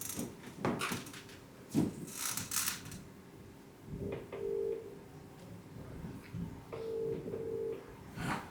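Telephone ringback tone of an unanswered call: British-style double ring, a two-part ring about every three seconds, starting about four seconds in. A few short clicks or taps come before it.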